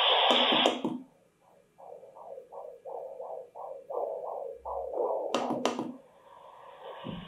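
Ewan Deluxe sleep-aid speaker playing rainfall white noise, cut off by the clicks of a double tap on its main button under a second in. It then plays its womb sound, a rapid regular whooshing pulse of about four beats a second. Near the end another double-tap click switches it to a fainter, steady vacuum-cleaner noise.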